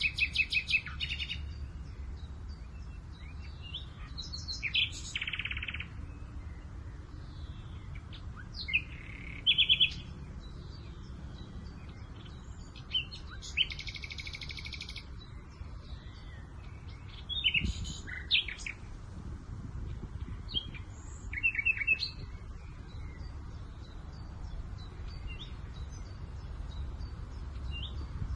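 Several wild birds singing and calling in short, scattered phrases and quick trills, over a steady low rumble of wind.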